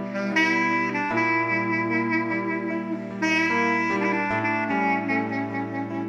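Background instrumental music: a slow melody of long held notes over a steady low bass.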